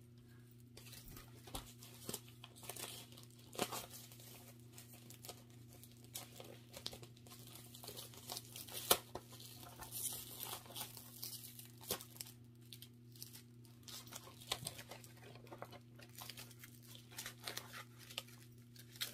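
Thin clear plastic wrapping crinkling and tearing in irregular crackles as it is handled and peeled off laser-cut plywood kit sheets.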